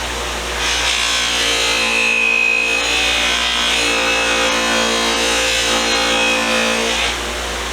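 Bench buffing wheel running with metal held against it: a steady motor hum under a rubbing hiss that shifts a little as the part is worked. It eases off about seven seconds in and stops at the end.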